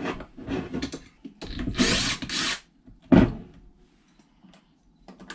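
Metal parts being handled on a wooden workbench: a few clicks, then a loud rattling, rasping burst lasting about a second, and a single heavy thump about three seconds in, followed by light clicks.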